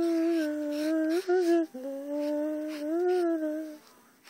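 A person humming a tune in long, held notes, in two phrases with a short break about a second and a half in; the humming stops near the end.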